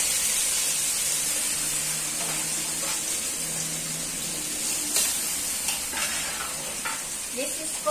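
Boiled beef shank and oxtail pieces sizzling in hot oil in an aluminium wok as they are browned, a steady hiss. A few light clicks from the metal tongs against the pans in the second half.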